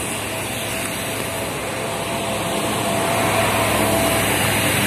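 Steady hiss of traffic and rain on a wet road, with a passing vehicle's engine hum growing slowly louder.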